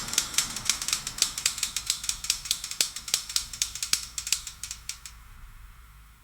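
Milking parlour ambience: rapid, irregular metallic clicking and clattering that fades away and stops about five seconds in.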